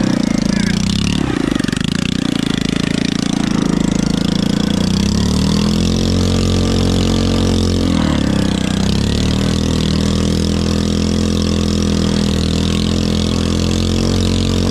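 Motorized picnic table's engine running as it drives along. Its revs dip and recover about a second in and again about eight seconds in, then hold steady.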